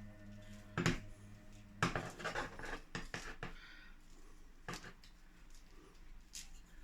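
Light knocks and scraping from hands working seeds and potting soil in a balcony planter box, with a couple of sharper clicks about one and two seconds in. Soft sustained background music fades out in the first two seconds.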